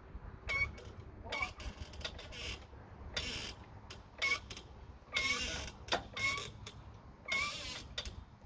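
Daytona hydraulic floor jack being pumped by hand to lift a tractor. Each stroke of the handle brings a squeak that bends in pitch, about once a second, with short scraping, rattling bursts between.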